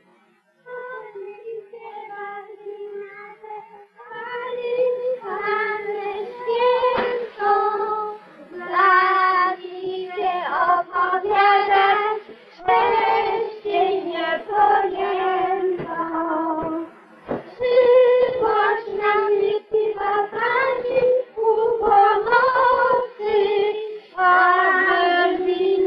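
A high female voice singing a melody in phrases with short breaks between them: soft at first, louder from about four seconds in. The recording is a 1930s film soundtrack with nothing in the upper treble.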